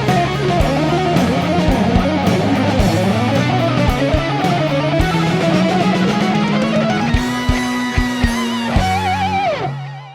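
Progressive rock band playing: an electric guitar melody over bass and drums, ending on a held, wavering note as the music fades out near the end.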